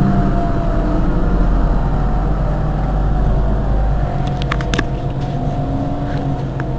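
Mercedes-Benz Citaro G C2 articulated bus idling while stationary: a steady low engine hum. The deepest rumble eases off about four seconds in, followed by a brief cluster of clicks.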